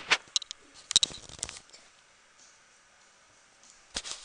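Camera handling noise: quick rustles, scrapes and knocks as the handheld camera is moved and gripped, in a cluster over the first second and a half and again near the end, with a quiet stretch between.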